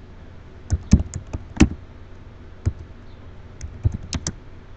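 Computer keyboard typing: about ten separate keystrokes in irregular groups, a quick run of five, a single key, then a final run of four.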